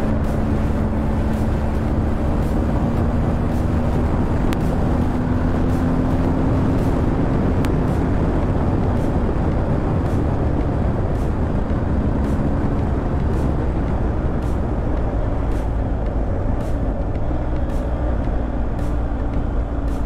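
BMW R 1250 GS Adventure's boxer-twin engine running under way, mixed with heavy wind and road noise. A steady engine note climbs slightly in pitch over the first several seconds, then sinks into the wind noise and comes back faintly near the end.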